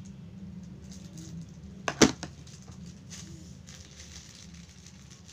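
Cellophane bag used as a piping bag being handled and squeezed: faint plastic crinkling, with one sharp click about two seconds in.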